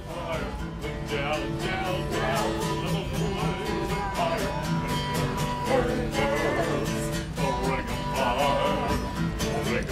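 A man singing a country song while strumming an acoustic guitar in a steady rhythm.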